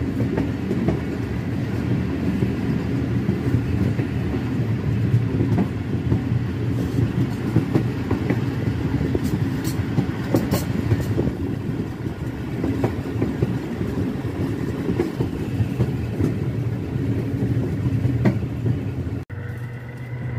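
Passenger train running on the rails, heard from on board: a steady rumble of wheels and carriages with frequent small knocks and rattles. The sound breaks off abruptly near the end.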